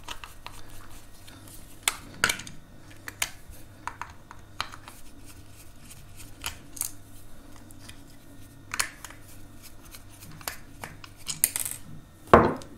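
Screwdriver turning a small screw out of a plastic charger case: scattered light clicks and ticks from the driver tip and the plastic being handled, with a louder clatter near the end.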